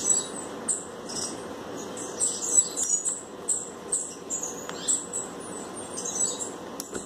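High-pitched chirps repeating irregularly, about twice a second, over a steady low background hiss.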